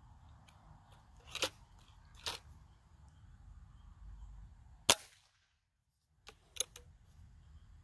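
A Gamo Wildcat Whisperer .177 pellet rifle firing once, a single sharp crack about five seconds in. Fainter sharp clicks come twice before the shot and a few times after it.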